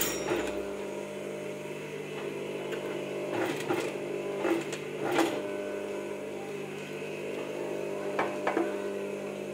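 Electric sewing machine running with a steady motor hum while stitching, with a few short sharp clicks about halfway through and again near the end.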